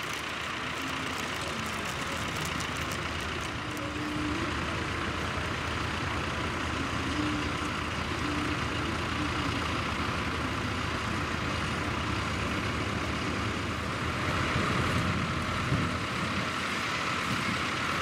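Diesel tractor engines running steadily under load, pulling mounted ploughs.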